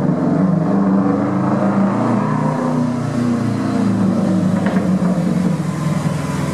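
A car engine running at a steady, even pitch.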